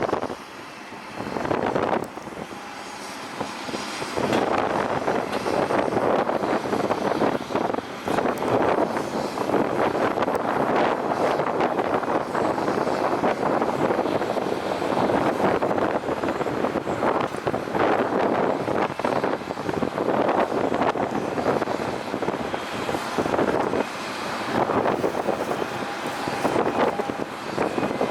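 Jet airliner engines running on the ground, a steady rushing noise that swells and fades slightly, quieter for the first few seconds.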